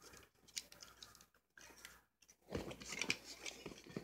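Faint scattered clicks and rustles of hands handling an opened TV remote's plastic casing and circuit board during reassembly, growing busier about halfway through.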